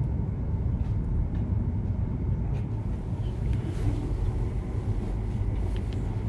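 Steady low background rumble with a few faint clicks, the room tone of a prayer hall heard through the recording's microphone.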